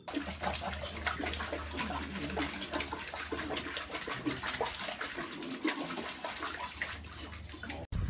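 Running water with continual small splashes, steady throughout.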